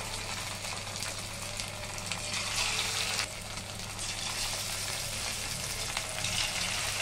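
Semolina-and-potato snack pieces deep-frying in hot oil in a kadai: a steady sizzle that grows louder for about a second from roughly two and a half seconds in, then drops back.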